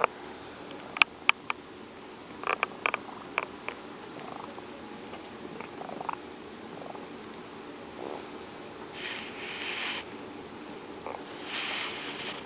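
A fat house cat breathing with a raspy wheeze: two long, hissy breaths in the last few seconds. Before them come a few sharp clicks, the loudest about a second in.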